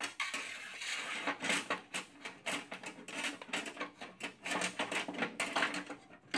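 Tailgate latch assembly and small metal parts clinking and rattling in a series of irregular knocks and clicks as they are worked into place inside a steel Bronco tailgate.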